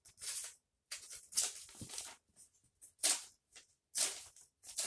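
A sheet of paper scraped and rubbed against the sharp edge of a twist puzzle cube in an attempt to cut it: about four short rustling scrapes with pauses between them.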